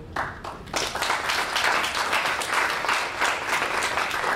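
Audience applauding: a few scattered claps, then full applause within the first second.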